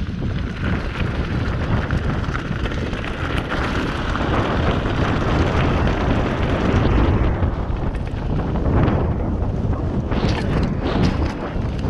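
Mountain bike riding fast over a rough dirt trail: wind buffeting the microphone and tyre rumble, with a run of sharp rattles and knocks over bumps near the end.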